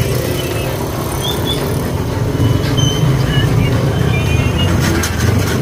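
Street traffic: motorcycles running and passing close by, making a steady low engine rumble.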